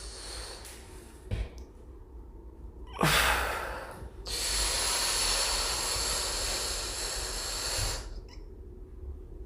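A person breathing during an exercise: a sharp breath about three seconds in, then a long steady exhale lasting about four seconds.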